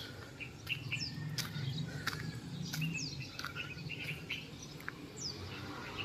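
Birds chirping: short, high calls that sweep downward, repeated every second or two, with other chirps among them, over a low steady hum.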